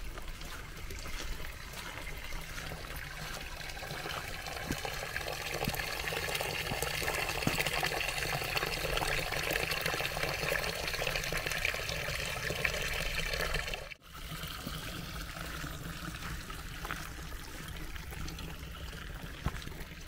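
Running water of a small mountain stream, a steady rushing trickle that grows louder toward the middle and cuts out for an instant about two-thirds of the way through.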